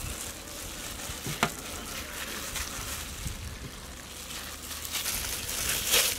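Gloved hands scraping mashed boiled potato out of a steel bowl onto a large metal plate: a steady crackly rustle of plastic gloves and mash, with a few light clicks of metal on metal, the loudest near the end.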